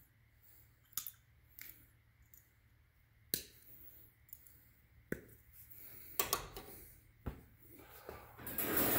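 Pliers working steel welded-wire fencing: about seven sharp metallic clicks, a second or two apart, as the wire is cut and bent. Near the end the wire mesh rattles and scrapes as it is shifted on the metal table.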